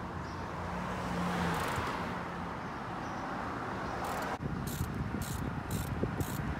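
Street traffic: a car passes, its sound swelling and fading over the first two seconds. In the second half, sharp ticks repeat about twice a second.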